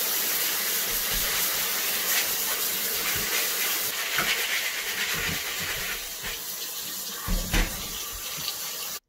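Tap water running steadily through a sieve as terrarium drainage medium is rinsed, with a few knocks and rattles from the sieve and a couple of heavier thumps about seven seconds in. The sound cuts off abruptly just before the end.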